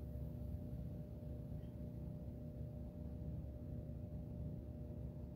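Quiet room tone: a steady low hum with no other events.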